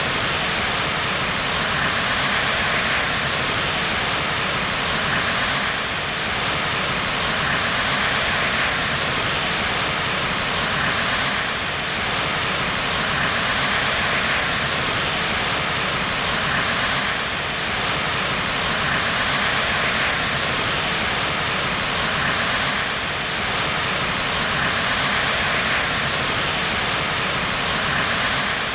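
White water rushing in a steady, unbroken stream of noise, swelling and easing slightly every few seconds.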